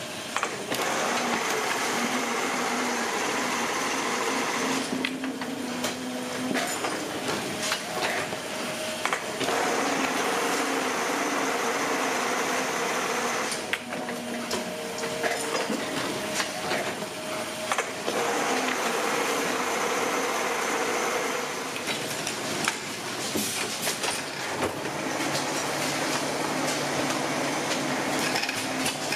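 Paper-tube rolling machinery running: a steady mechanical whir with a low hum and scattered knocks, its sound shifting several times.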